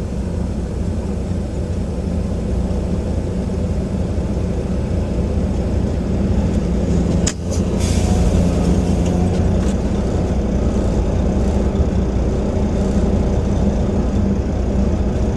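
Semi truck's diesel engine running steadily under low-speed manoeuvring, with a sharp click and a short hiss about halfway through.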